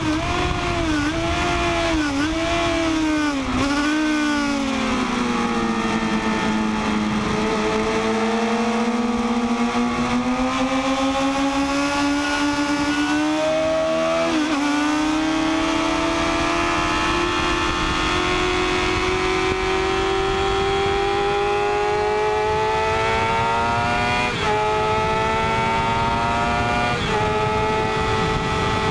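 Sport motorcycle engine heard from onboard at speed: in the first few seconds the revs dip and flare three or four times as the rider shifts down, then they climb slowly and steadily under gentle throttle, with an upshift about halfway and another step near the end. Wind rushes past the microphone throughout.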